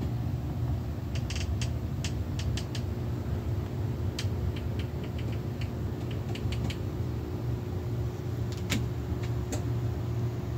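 A steady low machine hum, with light clicks and taps scattered irregularly over it.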